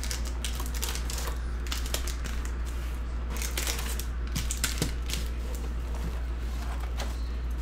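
Cardboard hobby box and sealed foil trading-card packs being handled: a steady run of small crinkles, taps and clicks as the packs are pulled out of the box and stacked, over a steady low hum.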